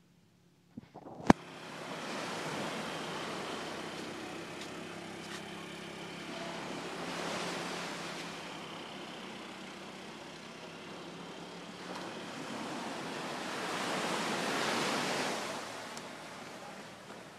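Waves washing onto a sandy beach, a steady hiss that swells twice, after a sharp click about a second in.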